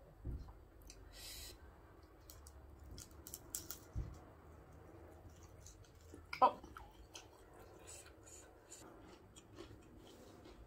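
Close-miked mouth sounds of a person eating crisp fried food with chopsticks: scattered crunching and chewing clicks. The loudest is a short sharp sound about six seconds in, as the bite is taken.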